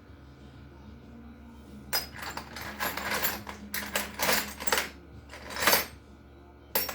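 Loose metal bolts clinking and rattling as a hand rummages through a bolt bin. The rattling starts about two seconds in and comes in several bursts.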